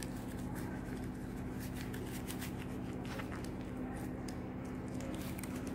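Light rustling and small ticks of hands handling cloth and glove materials, over a steady low electrical hum.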